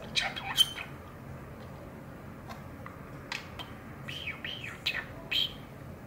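A male budgerigar chattering in his scratchy, high talking voice, mimicking Japanese phrases. A loud burst of chatter comes right at the start, then scattered clicks and chirps, then a run of warbling about four seconds in.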